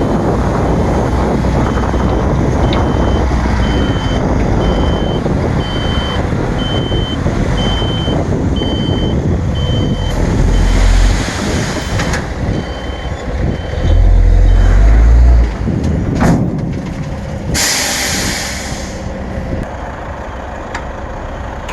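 Dump truck running while tipping its load, with a reversing alarm beeping about once a second for the first dozen seconds. The engine surges louder twice near the middle, then there is a sharp knock and a brief air hiss like an air brake releasing.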